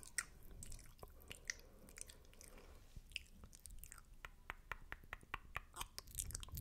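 Close-miked wet mouth sounds: soft spitty clicks and smacks, scattered and coming faster in the second half.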